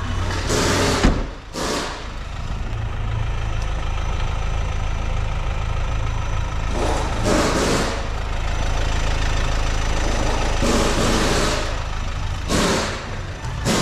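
Car engine idling steadily, with several brief rushes of noise over it.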